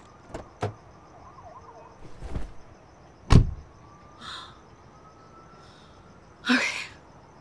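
Handling sounds inside a car: a couple of sharp clicks, a rustle, then one heavy thump about three seconds in, and a short breathy burst near the end.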